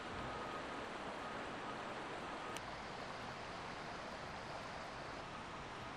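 Steady rushing of a mountain river flowing over rocks, with one sharp snap about two and a half seconds in.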